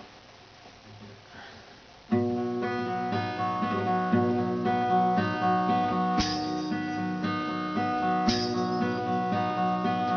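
Acoustic guitar introduction: strummed chords start abruptly about two seconds in and carry on steadily, with sharper strums about six and eight seconds in.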